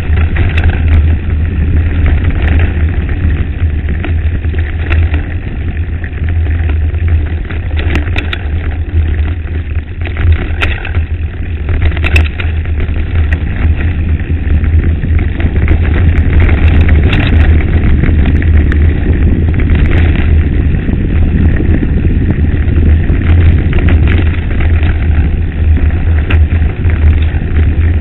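Mountain bike rolling down a rough gravel track, with wind buffeting the camera microphone: a loud, steady low rumble with scattered clicks and rattles from the stones and the bike.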